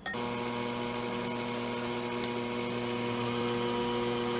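Electric stand mixer motor switched on at the start and running steadily at low speed with a constant hum, its wire whisks turning in cold heavy whipping cream.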